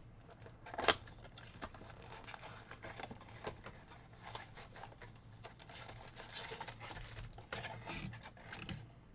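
Crinkling and tearing of a football trading card pack's foil wrapper as it is ripped open, with irregular rustles throughout and one sharp click about a second in.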